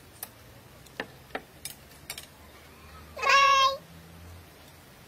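A few light clicks of chopsticks and spoons on plates, then a cat meows once, loud and high, for about half a second.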